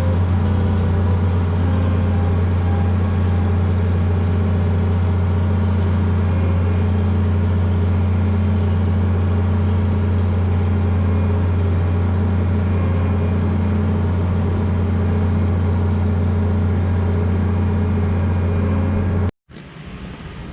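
Combine harvester's diesel engine running at a steady speed with a deep, even hum, cutting off abruptly near the end.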